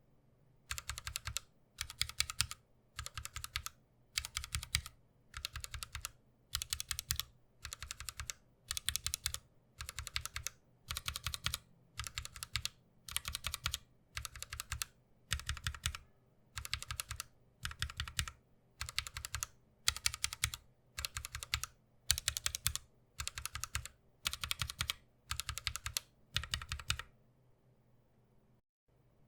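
Mechanical keyboard fitted with Everglide Aqua King V3 linear switches being typed on in short bursts of rapid keystrokes, about one burst a second, stopping a couple of seconds before the end.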